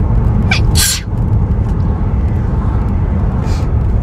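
One hard hay-fever sneeze about a second in: a short voiced intake rising into a sharp explosive burst, with a fainter breath near the end, over a steady low rumble.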